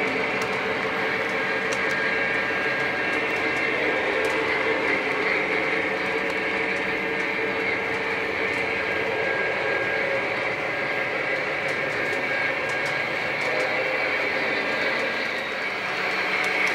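O-gauge model train running on its layout track: a steady rolling rumble of wheels and electric motor that does not let up.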